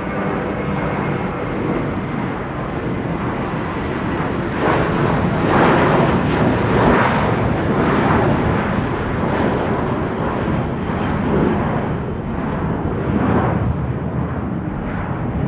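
Airplane engine noise: a loud, rushing roar with a faint whine near the start, swelling to its loudest about six to eight seconds in and then easing off slightly, with a pulsing texture.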